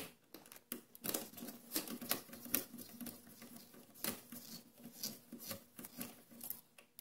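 Hand tools working a bare copper ground wire onto an electrical outlet's ground screw: irregular small metallic clicks and scrapes as the wire is bent into a hook and fastened under the screw.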